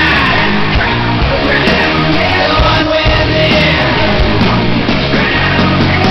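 Loud background music in a rock style.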